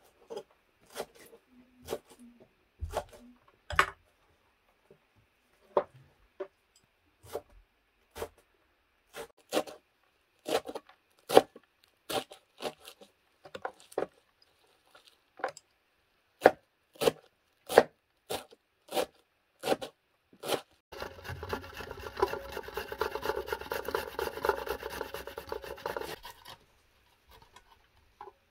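Knife chopping fresh coriander and leek greens on a wooden board: single sharp chops at uneven intervals. About two-thirds of the way through, the chopping gives way to about five seconds of continuous rasping from a box grater working over a metal bowl.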